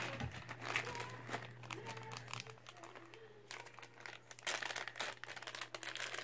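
Packaging crinkling and rustling in irregular bursts as toy cars are handled and pulled from a box, over a low steady hum.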